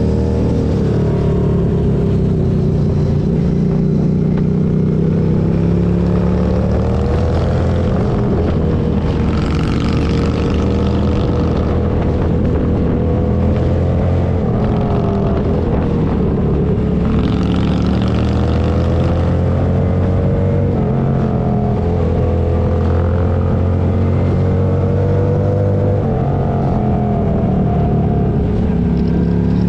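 Motorcycle engine running under way, its pitch rising and falling gently with the throttle, with a hissing rush of wind noise twice.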